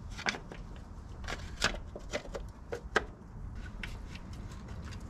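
Irregular light clicks and knocks of tools and engine parts being handled, most of them in the first three seconds, over a faint steady low hum.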